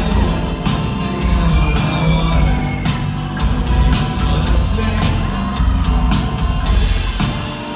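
Live rock band playing on, with electric guitars, keyboards, a bass line and drums keeping a steady beat about twice a second.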